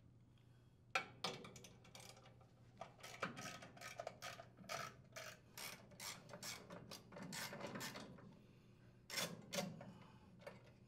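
Faint socket ratchet with a 10 mm socket clicking in short, irregular runs while backing out the blower housing screws of a Briggs & Stratton small engine, with light knocks of the tool against metal.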